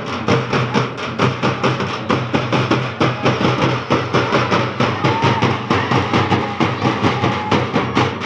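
A group of dappu frame drums beaten together in a fast, steady beat of about five or six strokes a second.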